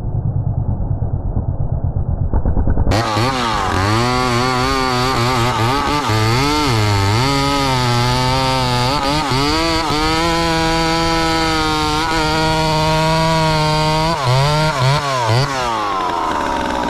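Gas chainsaw engine revving up and down, held at high speed for a few seconds, then blipped a few times and dropped back near the end. It follows a muffled low rumble that cuts off abruptly about three seconds in.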